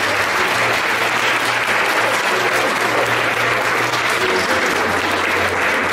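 Audience clapping, a dense, steady patter, over dance music with a steady bass line.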